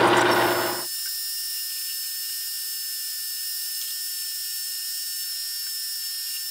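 Metal lathe running while the tool takes a light facing skim cut across the end of a steel shaft: a steady, thin, high-pitched whine. The deeper motor hum drops away about a second in.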